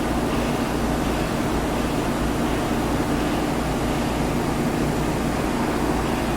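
Steady hum and hiss of an electric limited-express train standing at a station platform, its air conditioning and on-board equipment running.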